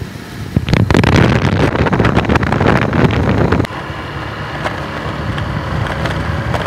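Wind buffeting the phone's microphone outdoors: a loud rumbling noise with scattered handling clicks that eases to a steadier, lower hiss about three and a half seconds in.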